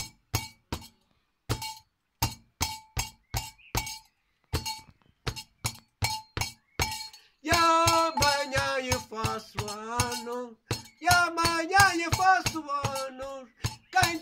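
A hand-held metal percussion piece struck in a steady clinking beat, about two to three strikes a second. About halfway through a man starts singing a Portuguese folk song over the beat, breaks off briefly, then sings on.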